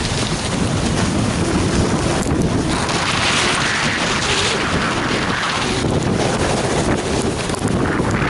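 Heavy wind buffeting the camera microphone while riding fast down a groomed run, mixed with the hiss of sliding over snow, which grows brighter and hissier in the middle.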